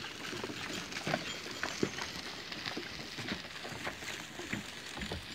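A harnessed billy goat's hooves clattering irregularly on a sandy dirt track as it pulls a small wooden cart, the cart rattling along behind it.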